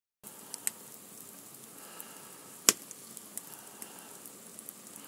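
Wood fire crackling in a stove's firebox: scattered sharp pops and snaps over a soft steady hiss, with one loud snap about two and a half seconds in.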